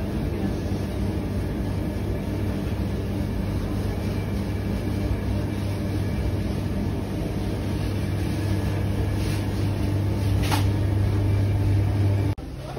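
Steady low electrical hum of supermarket freezer cabinets running, with a strong low drone and fainter overtones above it. A faint click about ten seconds in, and the hum cuts off abruptly near the end.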